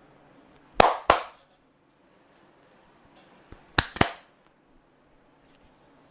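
Sharp hand slaps of a percussive massage, in two quick pairs about three seconds apart.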